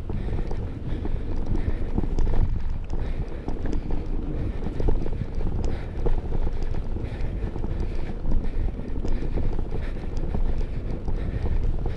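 Wind buffeting the microphone while a mountain bike rolls over a rough dirt track: a steady low rumble with frequent rattling knocks from the bike jolting over the ruts.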